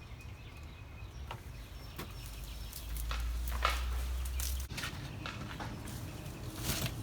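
Hands digging and rustling through loose potting soil in a potato container, with scattered scrapes and crunches. A low rumble comes in about three seconds in and stops sharply near the five-second mark.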